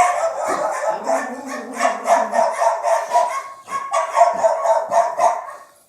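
Dog barking in quick, repeated barks, with a short break a little past halfway.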